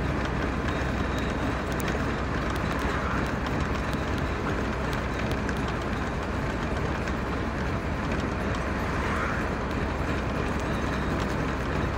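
Steady road noise of a car driving at speed on a motorway, an even rumble of tyres and engine.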